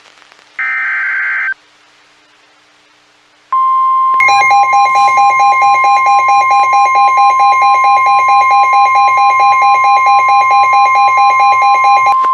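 Emergency Alert System signalling. A short screechy digital data burst of the alert header comes about half a second in. After a pause, a steady high alert tone starts and is joined a moment later by a harsh, rapidly pulsing buzz. The two sound together for about eight seconds, then cut off at once.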